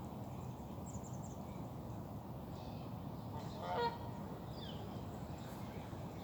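Fast, rain-swollen river flowing steadily, with a single waterfowl call just past the middle and a few faint high bird chirps.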